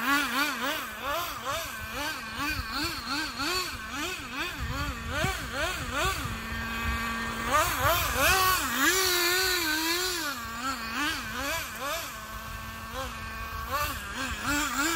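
Traxxas Nitro 4-Tec RC car's small two-stroke nitro engine revving up and down in quick throttle blips, dropping to a steady idle twice, about six and twelve seconds in, and held high for a couple of seconds in between.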